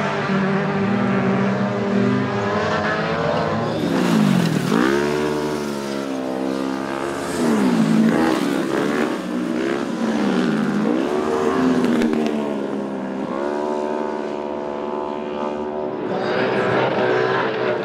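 Racing autocross buggy engines revving high, the pitch dropping sharply and climbing again several times as the drivers lift off and accelerate through the dirt corners.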